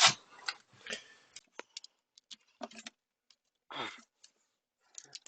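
Scattered light clicks, taps and short scrapes of hand tools and parts being handled on a car's front suspension, one sound at a time with quiet gaps between.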